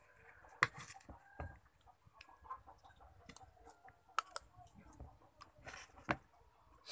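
Metal spoon scraping and clicking against a plate of rice sprinkled with Milo powder, with chewing in between. It comes as a few sharp clicks and two short scraping bursts.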